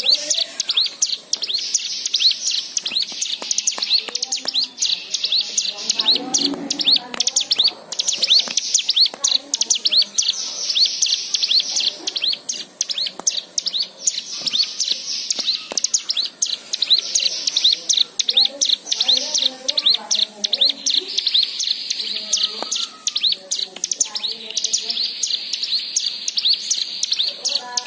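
Cigun (ciblek gunung), a small prinia, chirping in a rapid, almost unbroken high-pitched stream of sharp repeated notes, several a second, in long runs with brief breaks. This is the excited calling used as a lure to get other cigun birds to sing.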